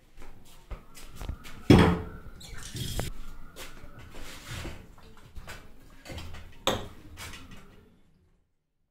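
Kitchen clatter of steel utensils being handled at a counter: irregular clicks and knocks, with two louder knocks about two seconds in and again near seven seconds. The sound cuts off about a second before the end.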